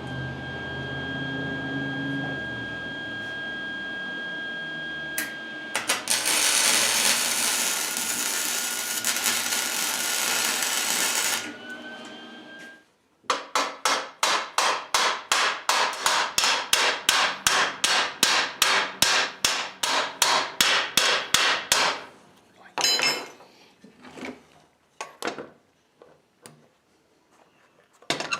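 A high-speed power tool whines as it runs free, then cuts into sheet metal for about five seconds with a loud rasping noise, its pitch pulled down by the load; it then speeds back up and spins down. After that come rapid hammer blows on metal, about four a second for some nine seconds, then a few scattered knocks and clanks.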